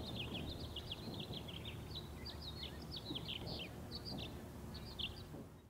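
Small birds chirping in many quick, short notes, several overlapping, over a low steady rumble. It fades out near the end.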